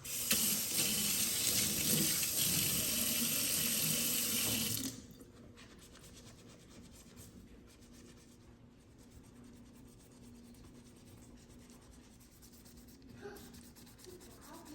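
Water running from a tap into a sink for about five seconds, then shut off abruptly; after that, faint rubbing and scrubbing sounds.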